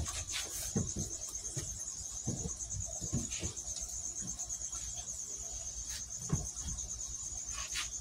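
Crickets chirping in a steady high trill, with rustling and soft knocks from a bag and a foam-lidded shipping box being handled.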